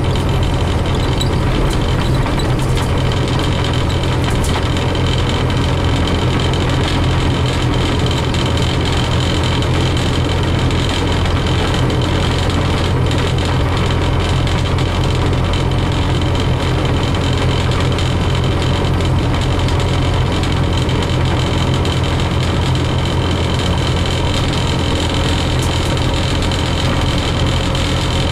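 Scania CN270UB city bus's engine running and its road noise heard from inside the cabin as the bus drives on at a steady pace, a constant low hum.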